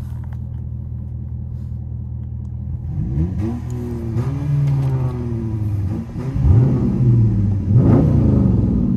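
Dodge Charger SRT's V8 heard from inside the cabin: a steady low drone, then from about three seconds in the engine revs up under acceleration, dips sharply at a gear change about six seconds in, and pulls up again.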